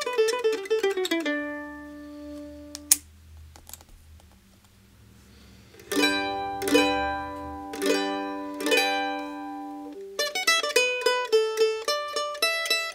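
Kentucky KM-600 mandolin played with a flatpick. A quick picked run with a Dunlop 208 pick ends on a ringing note, then a sharp click and a pause of about three seconds. It is followed by four strummed chords and a fast picked melody with an Alice 1.5mm pick.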